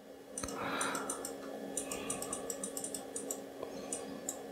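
Computer keyboard being typed on: quick, irregular key clicks for about four seconds over a steady low hum, with a soft rustle about half a second in.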